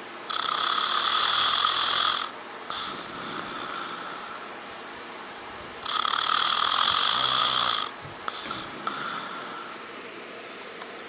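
A sleeping man snoring: two loud snores about two seconds long, some five seconds apart, each followed by a softer, shorter sound.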